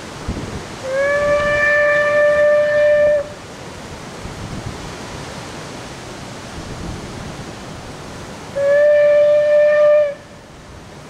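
Steam whistle of Bure Valley Railway's 15-inch gauge locomotive No. 7 Spitfire giving two long toots, the first over two seconds long and the second shorter, each sliding up slightly in pitch as it opens: a warning at the whistle board for the level crossing. Wind noise on the microphone between the toots.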